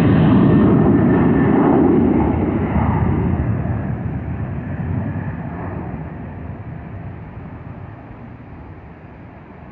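Aircraft engine noise from a passing airliner, loud for about two seconds and then fading steadily as the plane moves away.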